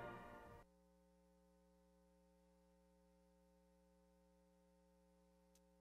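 The last of the performance music fades out and cuts off about half a second in, leaving near silence with a faint steady hum.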